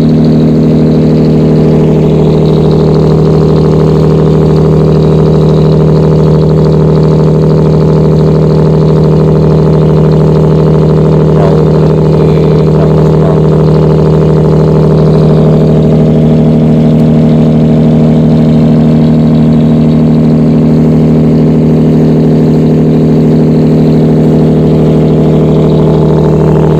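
Boat engine running steadily at a constant speed, loud and unchanging, with no revving.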